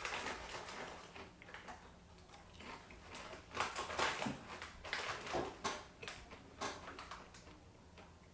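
Close-miked chewing of a Walkers potato crisp: irregular crunches, loudest in clusters around the middle.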